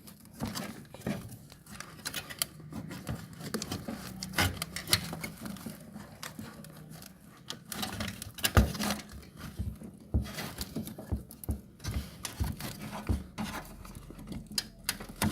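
Irregular clicks, taps and knocks of hand tools and metal and plastic parts being handled while working inside a washer-dryer's cabinet, with a faint low hum underneath.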